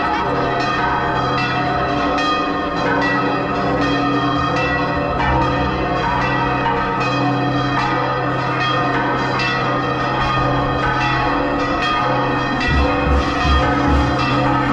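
Church bells pealing, with many strokes overlapping and ringing on. Near the end, low rhythmic beats join in.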